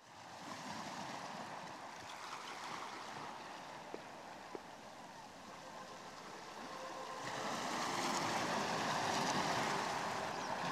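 Ocean waves washing as the ambient opening of a song, fading in and swelling louder about seven seconds in, with two faint clicks midway.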